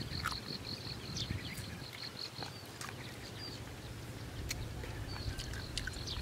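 Outdoor rural ambience: a small creature calling in a fast series of short high notes, about four or five a second, fading out about halfway through and returning near the end, with wind rumbling on the microphone and scattered small clicks.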